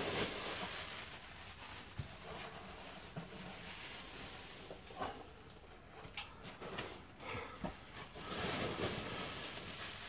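Hands rummaging through loose polystyrene packing peanuts in a large cardboard box: rustling, crunching foam with a few light knocks against the box and its contents.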